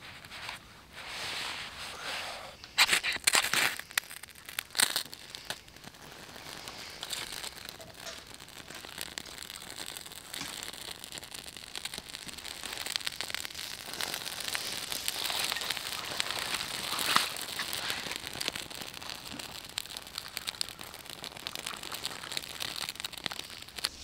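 A knife shaving dry wood in a few sharp scraping strokes. From about six seconds in, a small kindling fire of bark and wood shavings crackles steadily, a dense run of fine pops and ticks.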